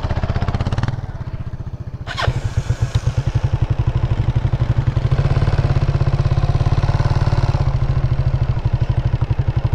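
Motorcycle engine running with a steady pulsing beat as the bike rolls slowly, a brief sharp sound about two seconds in, after which the engine grows louder.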